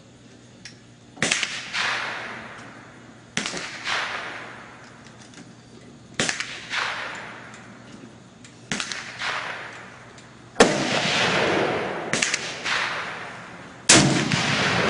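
Gunshots, about six, spaced two to three seconds apart, each a sharp crack followed by a long echoing tail. Another shot comes right on the heels of the fifth, a few seconds in from the end.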